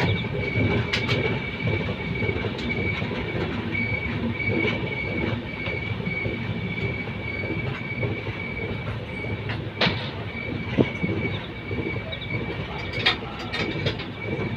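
Passenger train running on the rails, with a steady rumble and a thin high-pitched wheel squeal that breaks off and returns. A few sharp knocks come through near the two-thirds mark.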